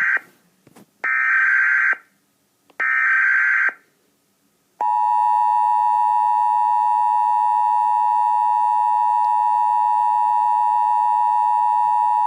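Emergency Alert System signal played over a television. The end of one burst and then two more short bursts of SAME digital header tones come at regular spacing. About halfway through, the steady two-tone EAS attention signal begins and holds. Together they announce a National Weather Service severe thunderstorm warning.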